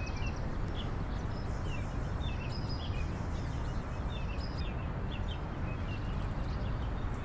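Small birds chirping again and again in short calls over a steady low rumble of outdoor background noise.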